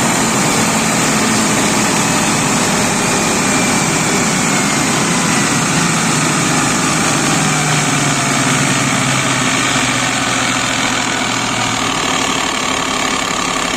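Truck engine idling steadily, heard up close at the ZF automatic transmission with its side-mounted power take-off.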